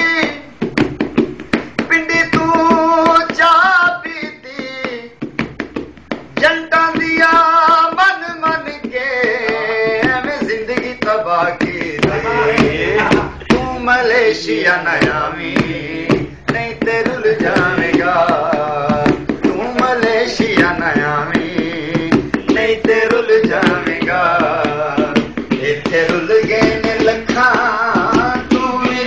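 A man singing a sad folk song over quick hand-drum playing; the drumming fills in and grows denser after the first several seconds.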